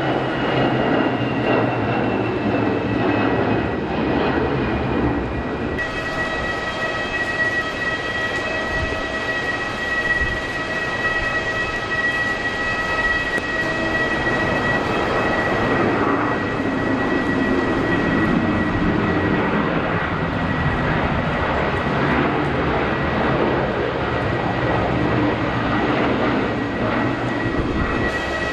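Jet airliner engines running with a steady rushing noise and a high whine. Over the first five seconds the whine slides down in pitch. About six seconds in the sound changes abruptly to a steady whine.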